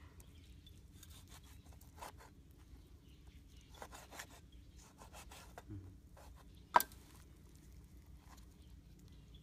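Large knife cutting and scraping on a piece of wood used as a chopping board: soft scattered scraping and rubbing strokes, with one sharp knock of the blade on the wood about two-thirds of the way through.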